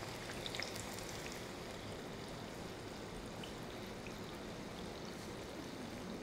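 Maida papdi deep-frying in oil on a low flame: a steady, soft sizzle with a few faint pops.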